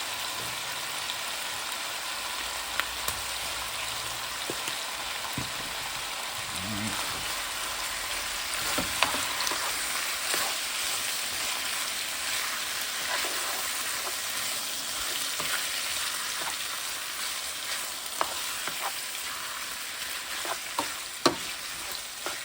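Boneless chicken thighs and chicken gizzards sautéing in vegetable oil: a steady sizzle, with a few sharp clicks and knocks scattered through it, the loudest near the end.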